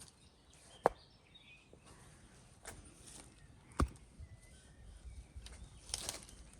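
Two sharp knocks about three seconds apart, the first the louder, with lighter clicks and rustling between them.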